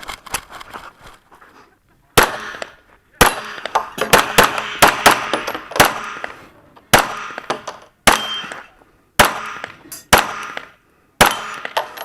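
Smith & Wesson M&P9L 9mm pistol fired in quick strings of shots with short pauses between them, starting about two seconds in, with steel targets ringing as they are hit.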